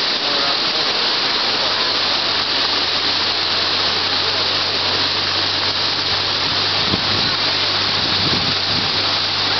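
Steady rushing of water, like a waterfall feeding the elephant exhibit's pool. A low steady hum comes in beneath it about halfway through.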